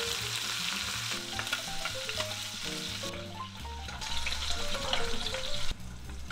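Pork belly frying in a pan, sizzling and crackling in its rendered fat, which drops off abruptly near the end. Soft background music plays underneath.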